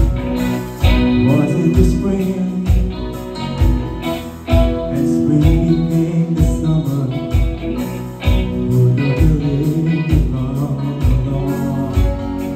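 Live band playing: electric guitar over electric bass and drums, with a steady drum beat.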